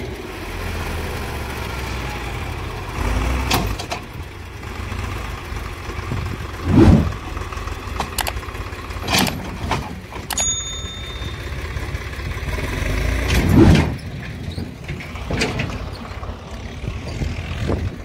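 Tractor engine running while its tipping trolley dumps a load of wet soil, with clods knocking and thudding down. Two heavier thuds come about seven and thirteen seconds in, as bigger masses of soil slide out.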